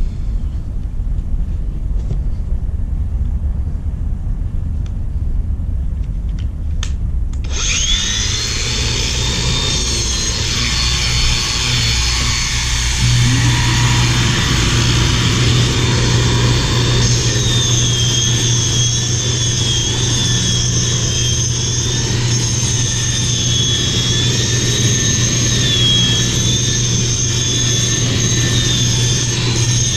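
A right-angle grinder with a cup wheel grinding concrete, its dust shroud hooked to a vacuum. A low rumble runs for the first several seconds; then the grinder starts with a sudden high whine, a deeper hum joins a few seconds later, and the whine's pitch wavers as the wheel works the surface.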